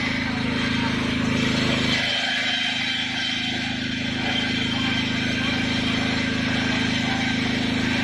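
Stationary engine of a small sawmill running steadily, driving the belt-driven circular saw blade, with a constant low hum and higher whirring on top.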